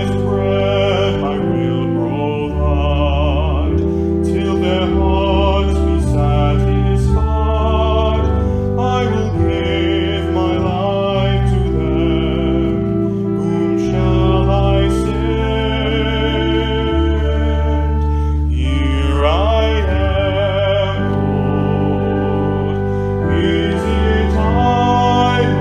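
A sacred song in a church service: a singing voice with wide vibrato over sustained keyboard chords and long held bass notes.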